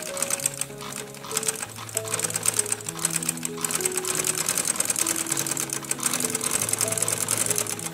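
Sewing machine stitching a straight seam at a steady speed, its needle making a fast, even rattle. Background music with slow held notes plays underneath.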